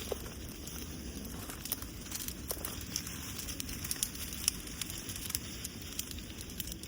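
Strong wind rumbling on the microphone, with scattered crackles and snaps from leafy bushes and foliage being rustled.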